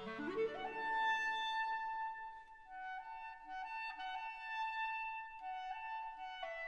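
Instrumental background music: a quick rising run of notes, then a slow melody of long held notes.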